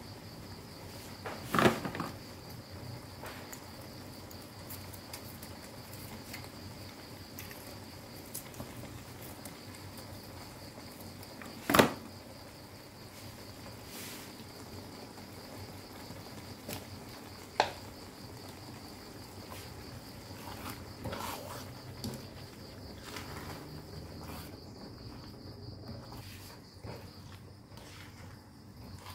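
Steady high-pitched cricket trill throughout, with a few sharp knocks of a utensil against the wok, the loudest about twelve seconds in.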